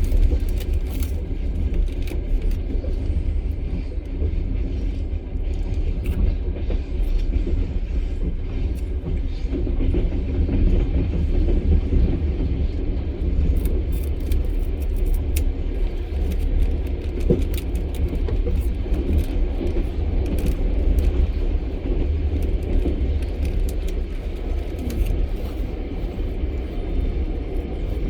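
Passenger train carriage running along the track, heard from inside: the steady low rumble of the wheels on the rails with scattered clicks and rattles.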